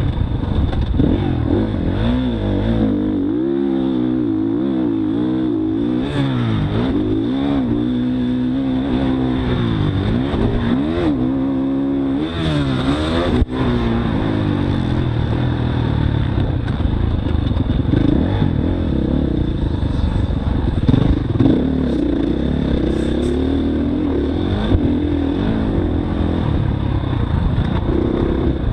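Motocross dirt bike engine heard up close from the bike, revving up and dropping off again and again as the rider accelerates out of turns and over jumps and shuts off before them, with clatter and scraping from the bike over the rough track.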